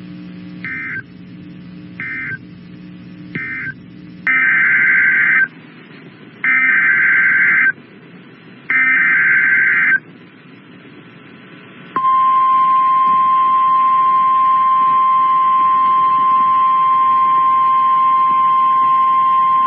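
NOAA Weather Radio alert tones. Three short bursts of SAME data close the previous warning. Three longer SAME header bursts follow for the next warning, then a steady single-pitch warning alarm tone begins about twelve seconds in and holds for about nine seconds.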